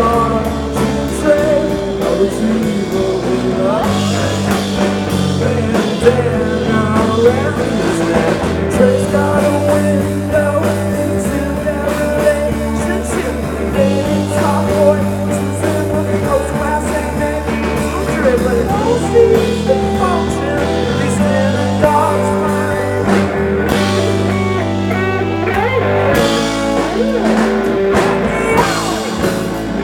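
A live rock band playing: electric guitars, bass guitar and drum kit, with a sung vocal, heard loud from the audience.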